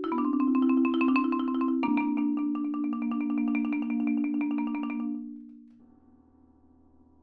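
Marimba playing a rolled tremolo chord, the rapid repeated mallet strokes sustaining the notes, moving to a new chord about two seconds in. The roll dies away around five seconds in, leaving a faint low ringing hum.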